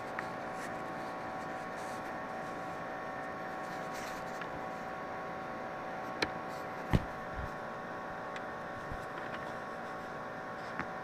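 Steady background hum with faint even tones, broken by a few small clicks and a short knock about seven seconds in as the front wheel of a 1/18 diecast model car is handled and pulled off its hub.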